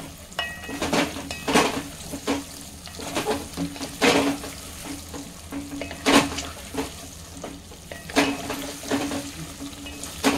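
Wooden spatula stirring raw mango slices through hot spiced oil in a hammered metal pot: irregular scraping strokes against the pot, a few loud ones, over a sizzle of frying. The mango pieces are being tossed to coat them in the tempering.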